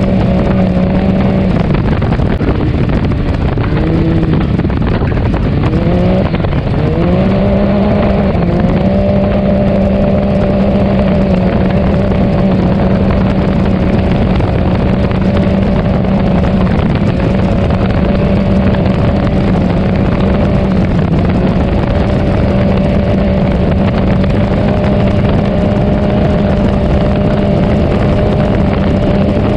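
Can-Am Maverick X3 Turbo RR side-by-side's turbocharged three-cylinder engine, fitted with an HMF single exhaust, running hard at speed. Its note drops a few seconds in, rises back up, and holds steady from about eight seconds on.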